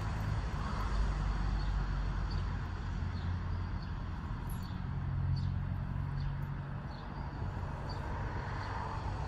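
Steady low rumble of an engine running in the background.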